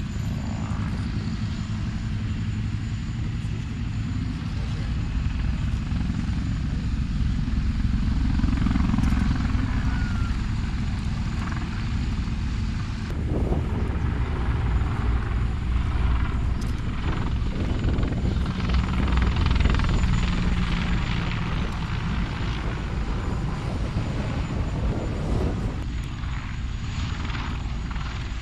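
Helicopter flying, its rotor beating and engine running at a steady, loud level. The sound changes abruptly about thirteen seconds in and again near the end.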